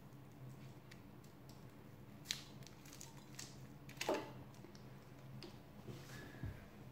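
Faint crinkling and clicks of a plastic icy-pole wrapper being squeezed to push the frozen ice block out, with a sharper click about four seconds in as the ice goes into the glass of water. A low steady hum runs underneath.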